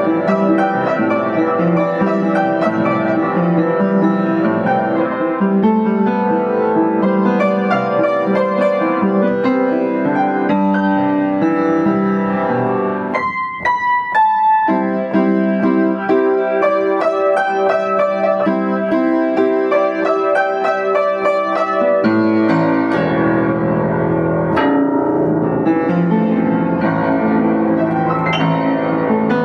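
Solo upright piano playing, a Yamaha U1J: a continuous melody over a flowing accompaniment. About thirteen seconds in the texture briefly thins to a few high single notes, and from about twenty-two seconds the bass sits lower and fuller.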